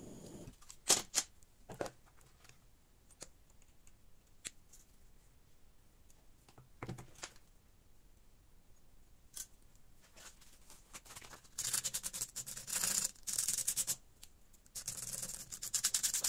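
Sandpaper rubbed by hand over a small soldered metal part in quick rasping strokes, in two spells in the second half. Before that, a few scattered light clicks of the metal parts being handled.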